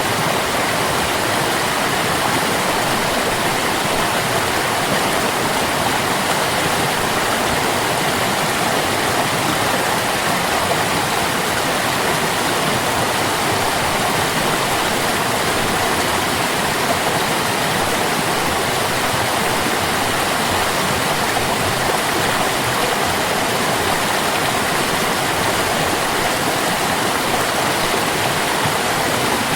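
Water of a stream flowing, a steady even rush with no pauses or changes.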